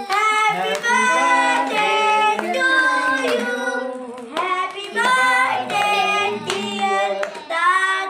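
Voices singing a birthday song in front of a lit cake, with hand clapping.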